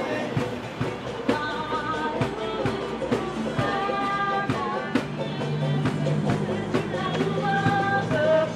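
Background music with a steady drum beat and a held melody line.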